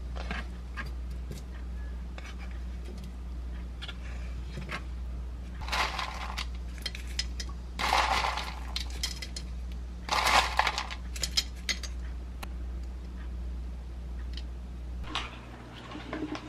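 Spoonfuls of coconut chunks tipped into a bowl of diced fruit: three short clattering rustles about two seconds apart, among light clinks of a spoon against the bowl and container. A low steady hum runs underneath.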